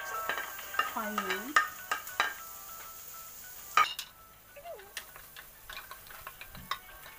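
Wooden spatula clattering against a plate and a nonstick wok as sliced onions are scraped in and stirred: a run of quick knocks and scrapes, a sharp knock about four seconds in, then lighter taps of the stirring.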